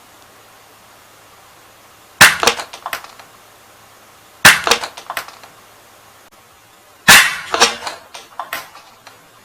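Toy pistol fired three times, about two and a half seconds apart. Each shot is a sharp snap followed by a short rattle of smaller clicks.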